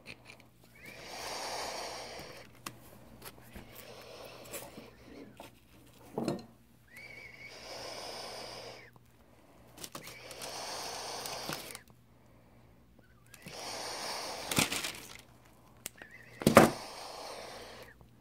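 Slow, close breathing, each breath a soft swell about every three seconds, with a few sharp knocks of parts and tools handled on a wooden workbench, the loudest one near the end.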